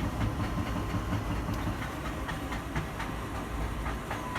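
Steady low mechanical rumble with light hiss and faint scattered ticks.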